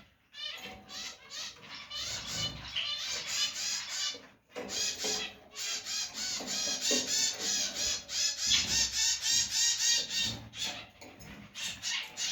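Canary singing a rapid, rhythmic run of short repeated chirps, several a second, with a brief pause about four and a half seconds in.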